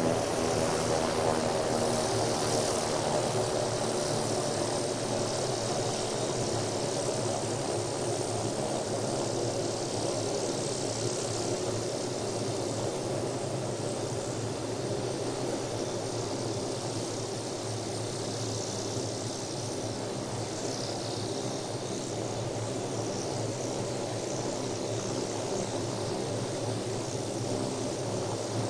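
Helicopter in flight, its rotor and engine giving a steady, even drone with a hiss above it, slowly growing a little quieter.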